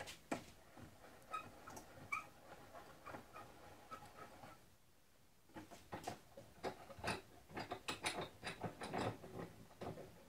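Scattered knocks, clicks and light metallic clinks of tools and objects being handled and moved around a wooden workbench, with a short lull around the middle and quicker, busier knocking after it.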